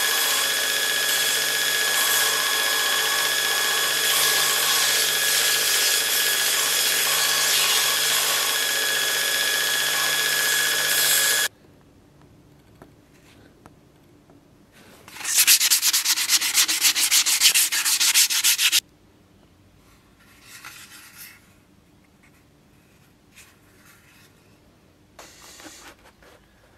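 Belt grinder running as a wooden scabbard liner is sanded against its contact wheel: a steady sanding hiss with a few constant tones that cuts off suddenly after about eleven seconds. Then quiet handling noises, broken by a few seconds of loud, rapid rasping strokes about fifteen seconds in.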